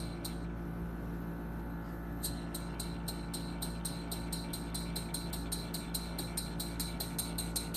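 Model horizontal steam engine with a flyball governor running, its cylinder exhausting in short, even hissing puffs. After a puff or two there is a short gap, then about four puffs a second from about two seconds in.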